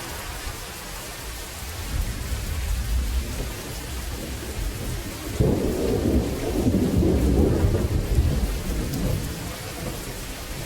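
Steady rainfall with thunder: a low rumble builds a couple of seconds in, then a sharper thunderclap breaks about halfway through and rolls on for a few seconds before dying away.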